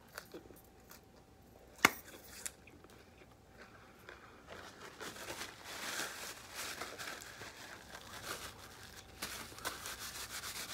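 Paper napkin rustling and crinkling in someone's hands, starting about four seconds in. Before it, a few faint clicks and one sharp click just before two seconds.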